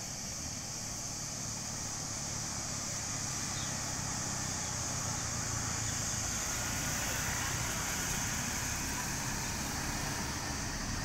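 Engines of a motor scooter and a line of cars coming down a hairpin bend, growing louder as they approach, loudest a little past the middle. A steady high insect drone runs underneath.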